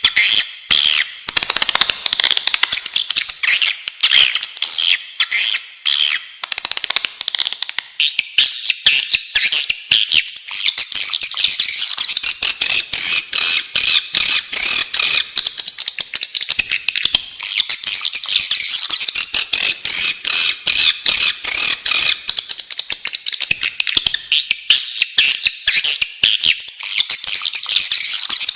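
Swiftlets twittering: a dense, unbroken stream of rapid, high chirps and clicks, the sort of call recording played to lure swiftlets. About a quarter of the way in, the chirping shifts higher in pitch.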